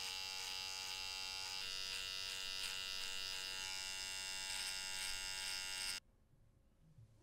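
Electric hair trimmer running with a steady, high buzz as its blade edges around the ear and neckline. It cuts off suddenly about six seconds in.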